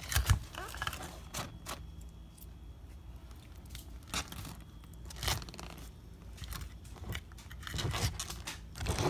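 Savannah monitor lizard eating a raw egg from a plastic bowl: irregular crunches of eggshell and scrapes against the bowl, a second or more apart, with a quick cluster near the end.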